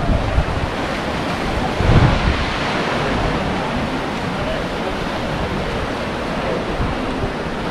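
Sea surf washing steadily against a rocky lava shore, with wind buffeting the microphone in a low gust about two seconds in.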